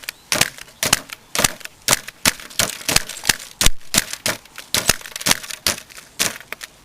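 Electric staple gun firing over and over into a trading card in its plastic case: a rapid, irregular run of sharp snaps, about three a second.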